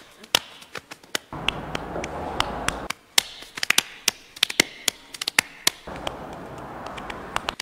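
A run of sharp hand taps and slaps, some in quick clusters, over a light steady hiss.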